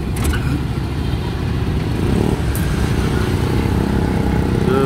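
Busy street traffic, mostly motorcycles with some cars, running close by in a steady low rumble.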